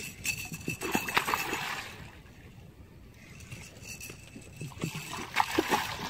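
A hooked red drum thrashing at the surface beside a boat, splashing water in two bouts: about a second in and again near the end.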